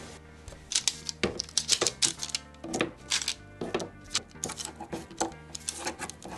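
Baked peanut butter cookies being picked up and turned over on a parchment-lined baking sheet: a quick, irregular run of light taps and paper crackles, with soft background music underneath.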